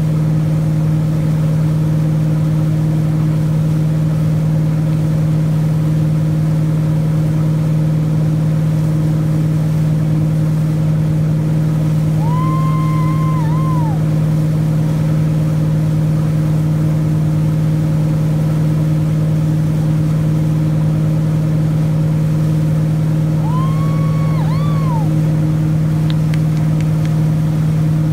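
The wakesurf boat's inboard engine running at a steady towing speed: a constant low drone, with water rushing behind the hull. Twice a long high-pitched call sounds over it.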